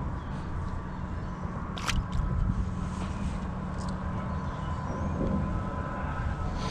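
Steady low outdoor rumble, like wind and distant road traffic, with one sharp click about two seconds in and a few faint high chirps.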